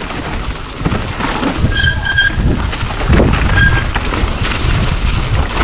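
Mountain bike descending a leaf-covered dirt trail: a continuous rumble of tyres over dirt and leaves with the bike rattling over bumps and wind buffeting the microphone. Two brief high squeals cut through, about two seconds in and again a little before the four-second mark.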